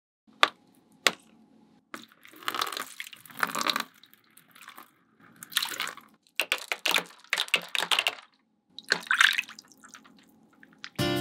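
Water splashing and trickling in a shallow model pool as plastic plants are set into it and fish are tipped in from a cup, in several short bouts. Two sharp taps come about half a second and a second in.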